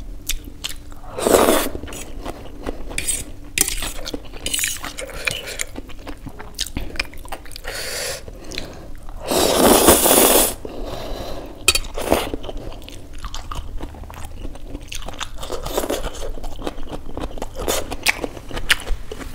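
Close-miked eating of Maggi instant noodles: wet chewing with many small mouth clicks, a short slurp about a second in and a long, louder slurp about halfway through.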